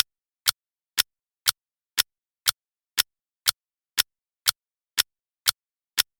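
Clock ticking steadily: two sharp ticks a second, with silence between them.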